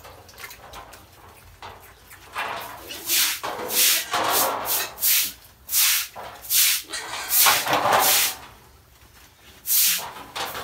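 Piglets squealing and grunting in about ten short, loud bursts as they jostle one another, most of them between about two and eight seconds in, with one more near the end.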